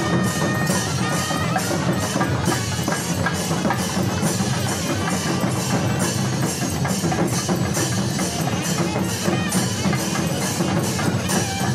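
Loud temple percussion music: drums and struck metal beaten in a fast, even rhythm of about three strokes a second. A held horn-like tone drops out about a second and a half in.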